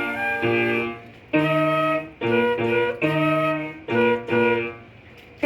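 A woodwind instrument playing a slow melody in phrases of held notes, each about a second long with short breaks between them, over piano accompaniment, easing off for a pause near the end.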